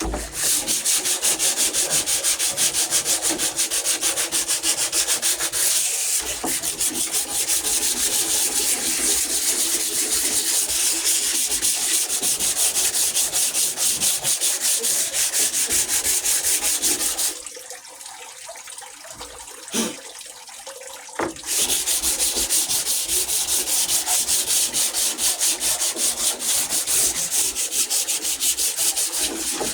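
Sandpaper rubbing on wood in rapid back-and-forth strokes. It stops for about four seconds past the middle, with a couple of light knocks, then starts again.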